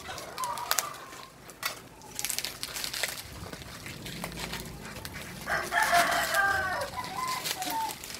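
A rooster crows once, starting about five and a half seconds in and lasting over a second; it is the loudest sound. Before it, plastic packaging crackles as it is cut with scissors and handled.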